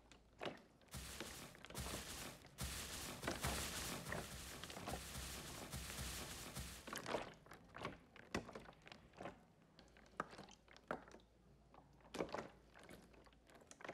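Dense scratching and crunching noise for about six seconds, then scattered short scrapes and clicks, like sand being scratched and shifted.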